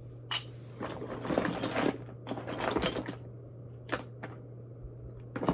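Small craft supplies rattling and rustling as a hand rummages through a box, in a few short bursts with sharp clicks in between.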